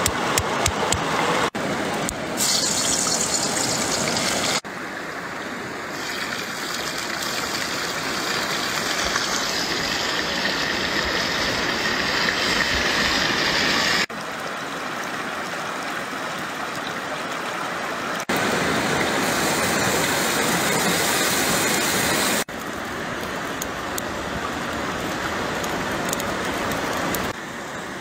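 Mountain stream rushing over rocks: a steady hiss of flowing water that jumps up and down in level at several abrupt cuts. In the first second or so, a quick run of knocks as ginger is crushed on a flat stone.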